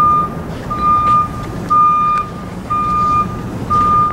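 A vehicle's backup alarm beeping steadily, one high beep about every second.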